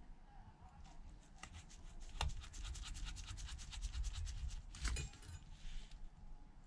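A precision pentalobe screwdriver turning a tiny pentalobe screw into the bottom edge of an iPhone SE (2nd gen): a fast run of fine scratchy clicks from the bit in the screw head, with a sharper click about two seconds in and another near five seconds.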